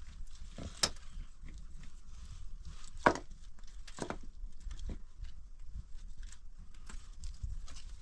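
Loose stones and earth being moved by hand: scattered clicks and scrapes of rock on rock, with a sharp knock about three seconds in.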